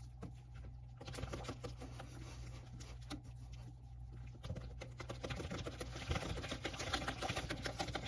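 Silicone-coated whisk stirring thick cheesecake batter in a glass bowl: rapid soft ticking and patter, louder from about halfway through.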